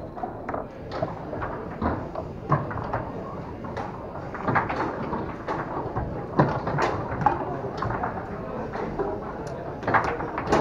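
Tornado foosball table in play: rods sliding and knocking against the table, and the ball clacking off the plastic men in irregular bursts, with a sharp loud strike near the end.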